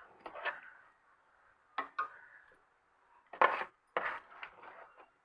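Spoon clinking and scraping against a cooking pot in a series of separate knocks, the loudest a little over three seconds in, as cooked beef korma is spooned over the rice.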